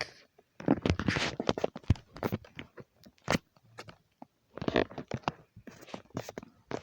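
Close rustling and scratching handling noise, in two irregular spells of scrapes and clicks.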